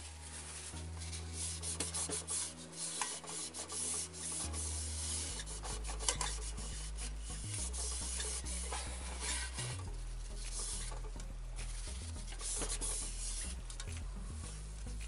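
Scraping and rubbing on a rice cooker's heating plate in quick, irregular strokes, cleaning off debris that keeps the inner pot from sitting flat on the heater.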